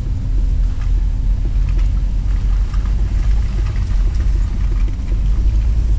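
Car driving slowly, with a steady low engine and road rumble.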